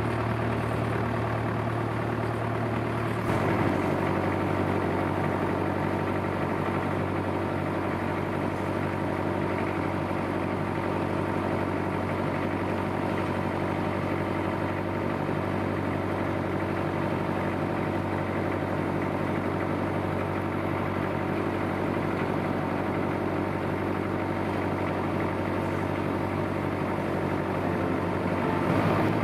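Vintage tractor engine running steadily while driving, heard from the tractor itself, with a change in its low hum about three seconds in.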